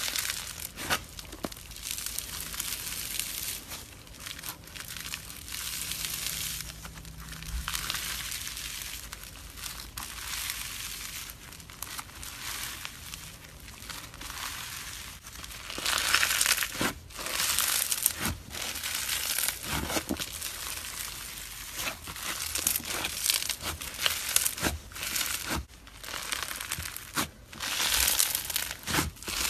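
Slime being squeezed and pressed by hand: a steady crackling with many small pops and clicks, louder and busier from about halfway.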